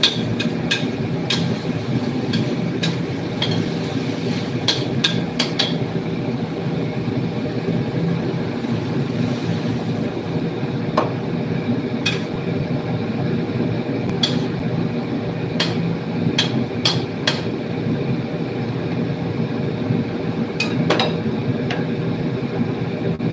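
Metal spatula clinking and scraping against a steel wok during stir-frying, sharp irregular clinks scattered over a steady low rumble.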